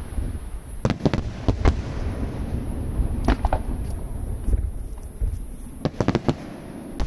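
Aerial firework shells bursting: sharp bangs in small clusters of two or three, every second or two, over a steady low rumble.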